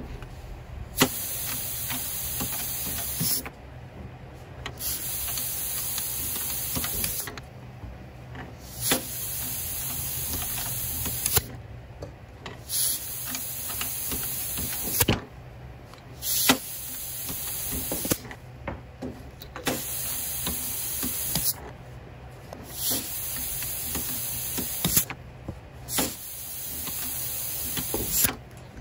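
Air-operated connecting-rod vise hissing with compressed air in about eight bursts of roughly two seconds each, every one starting with a sharp click, while rods are clamped for torquing the cap bolts. A few other sharp clicks fall between the bursts.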